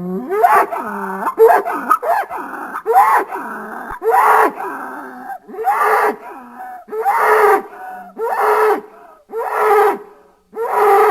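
A bull bellowing in a rapid run of short, pitched calls, about one a second, each bending up and then down in pitch.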